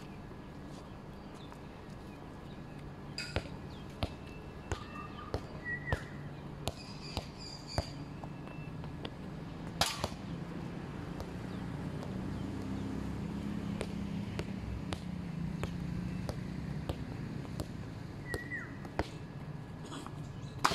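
Scattered sharp clicks and knocks, a dozen or so in the first half, the loudest about ten seconds in. Under them runs a steady low hum, and twice comes a short downward chirp like a bird's.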